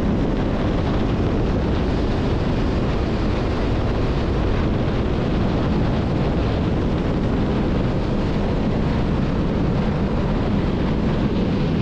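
Wind blasting over the action-camera microphone of a 2023 Yamaha GP1800R SVHO jet ski running flat out at about 50 to 60 mph, with the supercharged engine under the wind noise as a steady loud rush.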